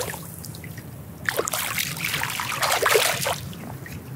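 Water splashing for about two seconds, starting a little over a second in, as a small hooked fish thrashes at the surface while it is reeled in.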